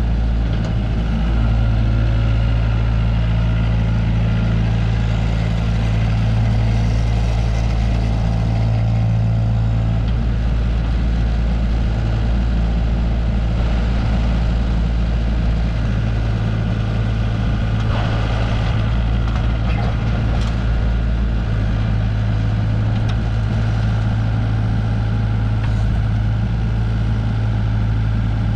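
Hyundai R60-7 midi excavator's diesel engine running steadily.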